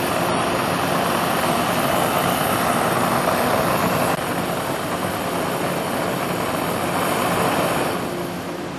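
Gas burner jet flame burning with a steady rushing noise. It drops slightly in level at about four seconds and again near the end.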